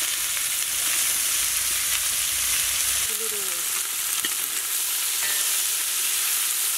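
Sliced onions just added to hot oil in a kadai, sizzling with a steady hiss as they start to sauté, stirred now and then with a ladle.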